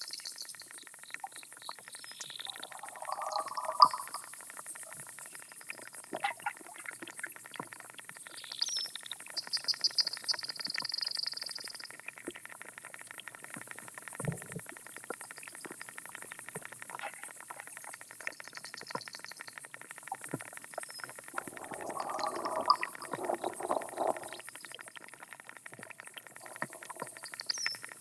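Underwater pond soundscape through a hydrophone: aquatic insects stridulating in high, rapid buzzy trills and lower raspy bursts, with scattered clicks over a steady hiss.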